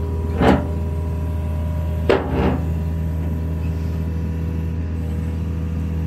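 Diesel engine of a backhoe running steadily, with three sharp knocks about half a second and two seconds in as slung steel H-beams are lifted off the dump truck's bed.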